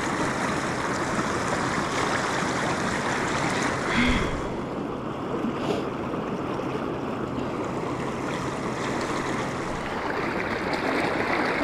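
Steady rush of the Kenai River's fast-flowing current, an even hiss of moving water.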